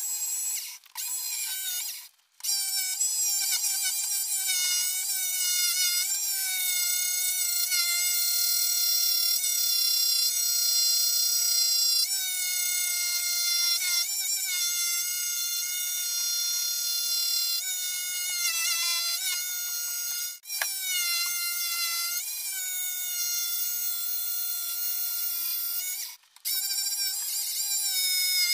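Ryobi RJS1050 corded jigsaw running and cutting through a thick wooden board, a steady high whine whose pitch wavers slightly as the blade loads in the cut. It stops briefly a few times as the trigger is released and then runs again.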